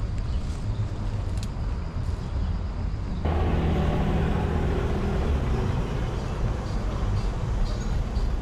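City street ambience heard from a moving bicycle: a low rumble, then after an abrupt cut about three seconds in, louder street noise with traffic.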